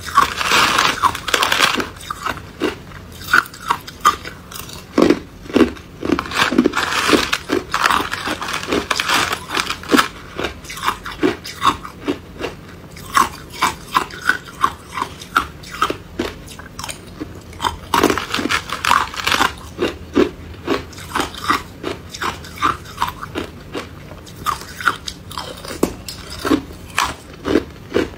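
Hard crushed ice being bitten and chewed close to the microphone: a continuous run of sharp crunches, with louder, denser bursts where she bites into a fresh spoonful, at the start, about a quarter of the way in and about two-thirds of the way in.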